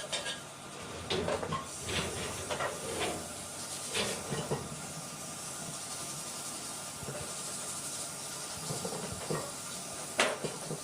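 Steady hissing noise in a workshop, with scattered light clinks and knocks and one sharp knock near the end.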